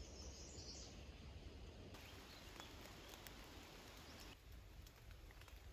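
Near silence: faint outdoor background with a few faint scattered ticks.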